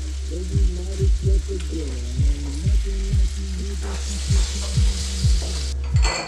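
Eggs and bacon sizzling in frying pans, over a hip-hop beat whose deep bass kicks drop in pitch about twice a second.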